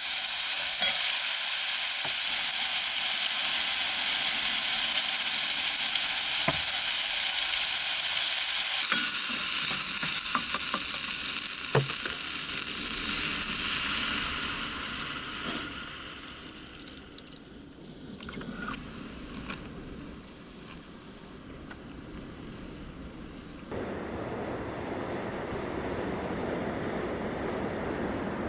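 Food sizzling and frying in a hot pan, with a few clicks and knocks of utensils. The sizzle dies away about halfway through, and a low steady hum comes in near the end.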